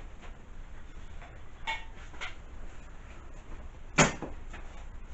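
Handling noises from objects on a workbench: a few faint clicks, then one sharp knock about four seconds in.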